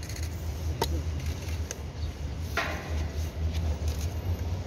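Steady low outdoor rumble with two short sharp clicks, about one second and two and a half seconds in; the far-off approaching train does not stand out yet.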